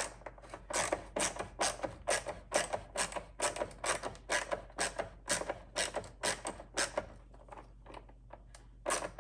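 Ratchet wrench clicking in an even run, about three clicks a second, working a nut on the truck's battery hardware. It stops about seven seconds in and clicks a couple more times near the end.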